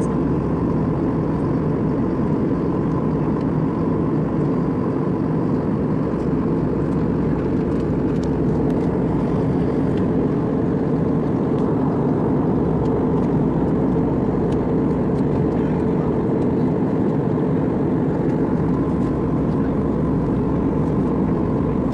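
Steady jet-airliner cabin noise in cruise flight: the even roar of the engines and rushing air heard from a window seat, with a faint steady tone running through it.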